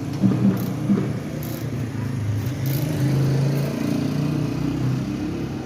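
Motorcycle engine running steadily at low revs, a low uneven hum.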